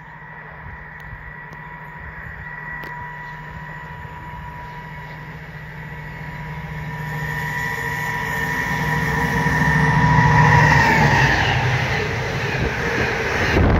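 Freight train hauling an intermodal container train, approaching and passing at speed: it grows steadily louder with a steady whine that falls in pitch as the locomotive goes by, about eleven seconds in, and then the noise of the container wagons rolling past.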